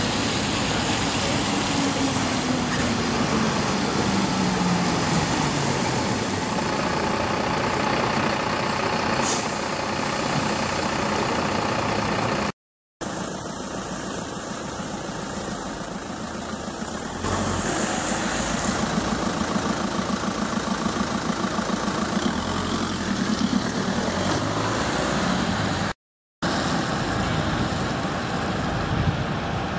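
Fire engines running steadily, with a tone that falls in pitch a few seconds in; the sound cuts out briefly twice.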